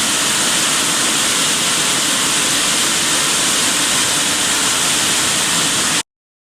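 High-pressure water jets of a touchless car wash machine spraying in a steady loud hiss, which cuts off abruptly about six seconds in.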